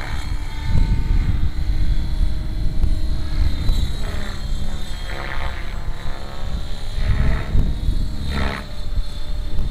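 Electric 700-size RC helicopter flying high overhead: rotor whir with a steady high-pitched whine, swelling several times as it manoeuvres, over a heavy low rumble.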